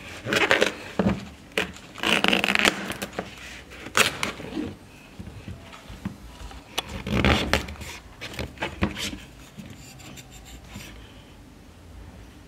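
Large kitchen knife cutting through a fleshy banana pseudostem and knocking on a plastic cutting board: irregular scraping slices and knocks in bouts, the loudest about seven seconds in, growing quieter near the end.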